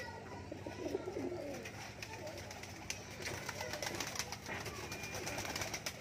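Domestic pigeons cooing, low and wavering, over the first second or so, then pecking grain off a concrete floor with many quick, small taps through the second half.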